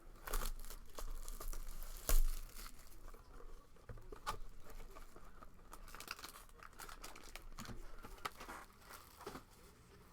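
Foil trading-card pack wrappers being torn open and crinkled, with irregular crackles and one sharper snap about two seconds in.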